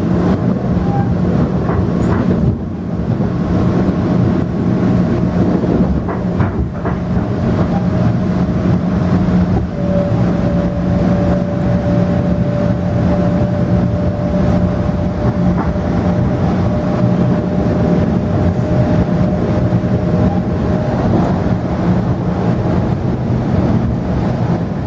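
Ride noise heard inside a Metro-North M7A electric multiple-unit car running at speed: a steady rumble of wheels on rail with a constant low hum. A thin steady whine runs from about four seconds in until about twenty-one seconds in, and there are a couple of short knocks in the first seven seconds.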